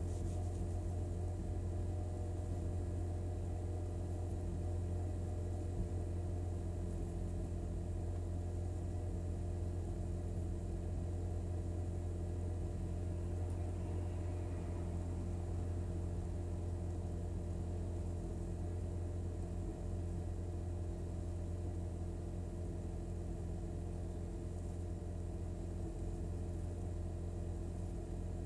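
2013 Hyundai Veloster Turbo's 1.6-litre turbocharged four-cylinder idling steadily, with a brief stumble or two. Such stumbles are misfires from a faulty ignition coil pack on one cylinder, worst at cold-start high idle.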